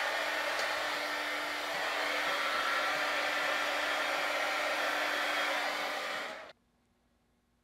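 Small handheld heat gun blowing steadily, its fan motor giving a steady hum under the rush of air, drying the freshly rinsed, gel-coloured steel test bar; it switches off suddenly about six and a half seconds in.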